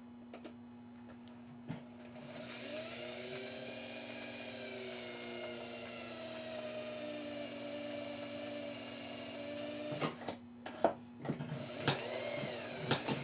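Small clockmaker's lathe motor spinning a clock wheel's arbor against a centering bit, starting a small centre hole in the filed end for a new pivot. It starts about two seconds in and runs with a whine that wavers in pitch, then stops, followed by a few light clicks.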